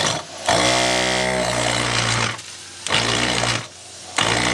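12-volt DC shower sump pump motor switched on and off three times as its wires are touched to a battery: a steady whirring hum for about two seconds, a short burst, then another run starting near the end. The pump works.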